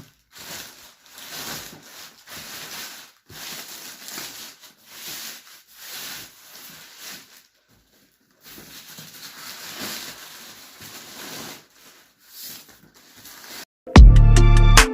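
Plastic polythene wrapping rustling and crinkling in repeated short bursts as it is pulled off a box. Music with a heavy bass starts near the end.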